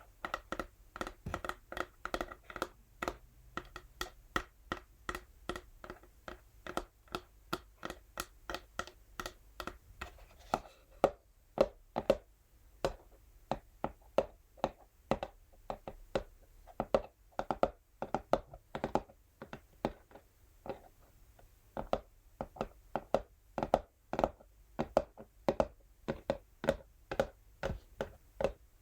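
Natural fingernails tapping rapidly on an empty textured cardboard box, several taps a second. For roughly the first ten seconds the box rings with a brighter tone under the taps; after that the taps sound duller.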